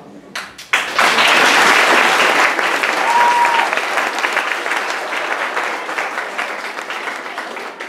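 Audience applauding in a hall, starting with a few scattered claps and swelling suddenly to full applause under a second in, then slowly dying down. A brief whistle is heard about three seconds in.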